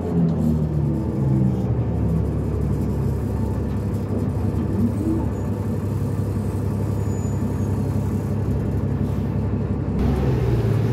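Cummins ISL diesel engine of a New Flyer D40LF transit bus heard from inside the bus, through its NABI-style exhaust pipe. The engine note falls away in the first second or so as the bus eases off, then settles into a steady low drone with road rumble, and starts to pick up again just before the end.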